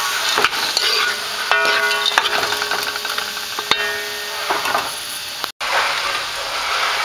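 Frozen mixed vegetables and seasoning sizzling in hot oil in a pan, with clicks and scrapes of a utensil against the pan. The sound cuts out for a moment about five and a half seconds in.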